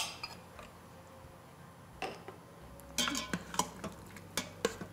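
Metal spoon clinking and scraping against a bowl and the stainless steel inner pot of an Instant Pot electric pressure cooker as frozen peas and carrots are scraped in and stirred. A sharp clink right at the start, then from about three seconds in a quick run of clinks and scrapes from the stirring.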